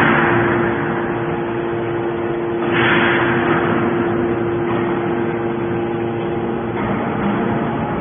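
Hydraulic aluminium-can baler running: the steady hum of its hydraulic power unit, with a rushing surge of noise about three seconds in that fades away over a couple of seconds.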